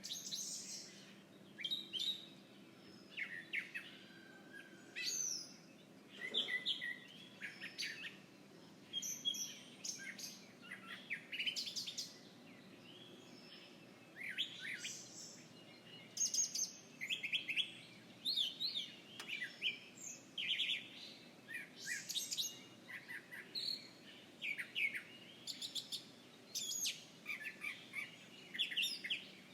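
Several small birds chirping outdoors: short, high chirps and twittered phrases every second or two, with a faint steady hum of distant background noise beneath.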